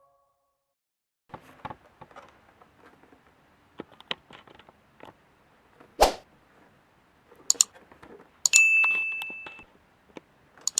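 Handling and knocks, most likely the microphone's packaging being handled: scattered light clicks and rustles, a sharp knock about six seconds in, and a short ringing ding with one clear tone about eight and a half seconds in.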